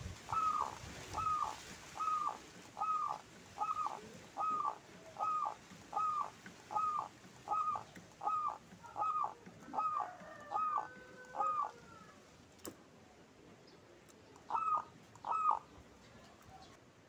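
Zebra dove (perkutut) calling a steady run of short falling coos, a little more than one a second, then pausing before two more coos near the end. A single click sounds during the pause.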